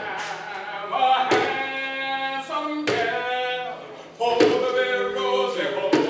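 Voices singing a slow song in long held notes, with a thump keeping the beat about every second and a half.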